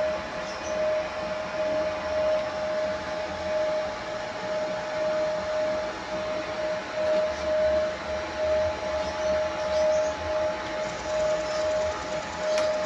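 Engraving machine running: a steady fan-like whir with a mid-pitched tone that comes and goes about twice a second, as the engraving head sweeps back and forth.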